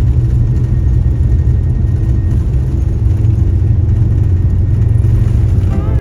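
Loud, steady low rumble of a vehicle's cabin in motion, cutting off abruptly at the end.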